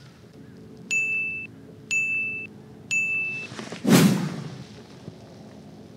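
Three short, high electronic beeps about a second apart. Then a loud whoosh about four seconds in, as a fishing rod is swept up from a kayak.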